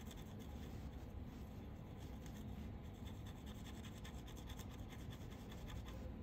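A tiny watch sleeve rubbed back and forth on fine-grit sandpaper under a wooden stick: faint, continuous scratching. It is being sanded down because it stands a little too tall on its post.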